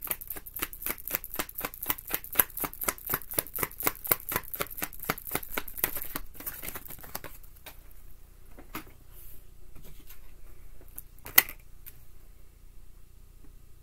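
A deck of tarot cards being shuffled by hand: a quick, even patter of cards slipping over each other, about five a second, that slows and stops after about six seconds. A few seconds later comes one sharp snap as a card is laid down on the table.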